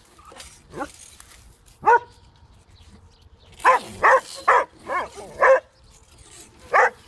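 Dog barking in short, sharp barks: a couple of single barks, then a quick run of five in under two seconds, and one more near the end.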